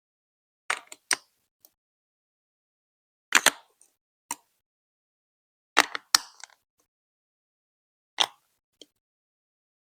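Hard plastic Lego Duplo bricks clicking and knocking as they are set down and pressed together, in short groups of one to three clacks every couple of seconds.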